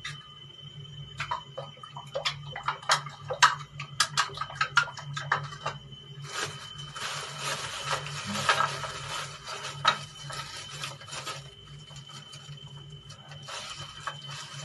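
Kitchen handling noises: a quick, uneven run of sharp clicks and taps for a few seconds, then about five seconds of rustling and rummaging while reaching up into a cupboard, with a little more near the end. A steady low hum runs underneath.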